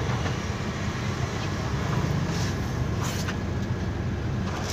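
Intercity bus engine and road noise heard from inside the cabin while the bus drives: a steady low rumble, with two short hisses near the middle.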